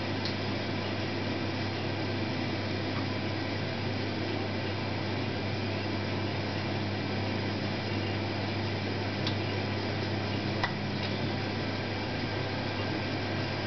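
Combi boiler running with a steady hum and a constant rush of water flowing through it, with a couple of faint ticks about two-thirds of the way through.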